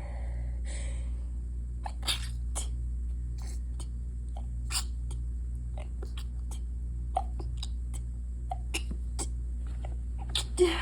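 A congested person stifling sneezes: a soft sniff about a second in, scattered small nasal clicks, and a short stifled sneeze near the end, over a steady low hum.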